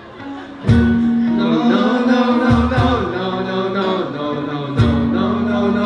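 Live band playing an instrumental passage: guitar chords held over a low sustained bass note, punctuated by sharp accented hits about a second in, midway, and near the end.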